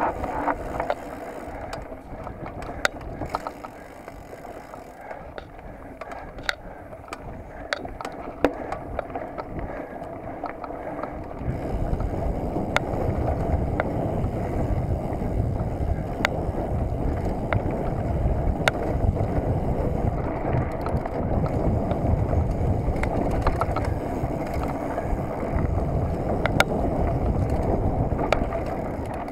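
Mountain bike riding a dirt forest trail: tyres rolling on dirt, with irregular clicks and rattles from the bike over bumps. About eleven seconds in, a louder low rumble sets in and holds.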